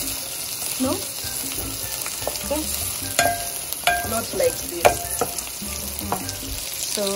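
Sliced red onions sizzling as they fry in an aluminium pot, stirred with a wooden spoon. A few times in the middle the spoon knocks against the pot, which rings briefly.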